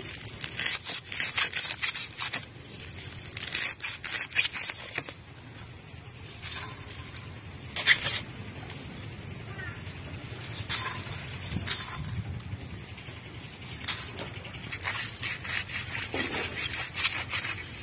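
A bundle of dry straw stems being chopped into short pieces on a bonti, the upright fixed kitchen blade. The stems give quick runs of crisp snapping and crackling cuts, with short pauses between runs.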